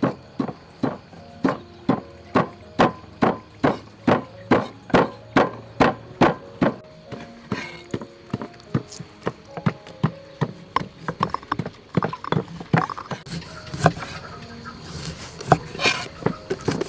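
A pestle pounding in a stone mortar at a steady beat of about two strikes a second, then, from about ten seconds in, quicker and lighter knife chops on a wooden cutting board as limes are cut.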